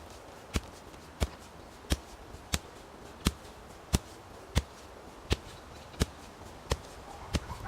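A hand tool chopping with steady, evenly spaced sharp blows, about three every two seconds.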